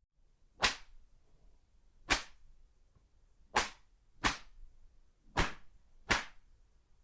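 A whip cracking six times: sharp, separate snaps, each with a short fading tail, spaced roughly one to one and a half seconds apart, with the middle ones coming in pairs.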